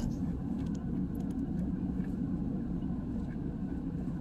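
Steady low rumble of a vehicle's engine and tyres heard from inside the cabin while driving slowly on a paved road.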